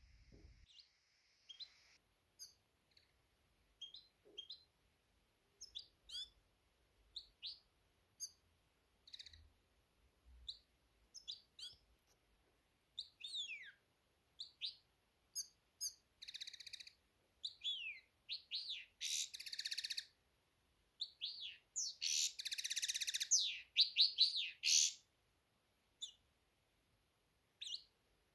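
Pet finches chirping and singing: scattered short high chirps and falling whistled notes, building into fast twittering song phrases that are loudest about two-thirds of the way through, then a few last chirps.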